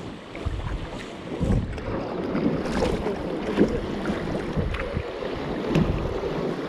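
Kayak paddle strokes splashing in river water around a plastic sit-on-top kayak, in irregular strokes, with wind buffeting the microphone.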